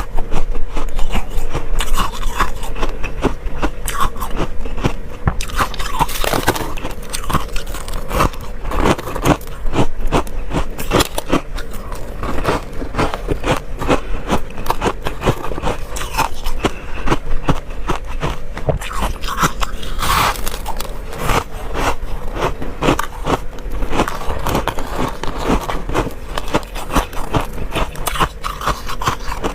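Freezer frost being bitten and chewed close to the microphone: a dense, continuous run of crisp crunches and crackles, with a faint steady hum underneath.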